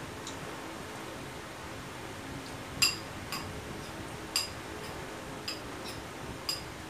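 Metal utensil scraping in a white ceramic bowl, giving about seven sharp ringing clinks over the last four seconds; the first, about three seconds in, is the loudest.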